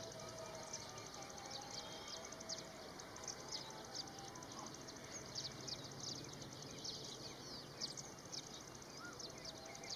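Faint outdoor chorus of high-pitched chirping: a dense, unbroken run of short quick notes, several a second.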